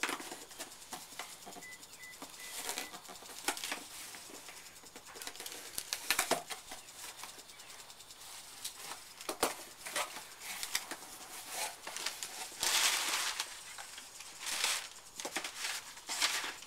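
A knife cutting the packing tape on a cardboard box, giving a run of scrapes and clicks. Then the box flaps are pulled open and paper inside rustles, with longer rustles past the middle.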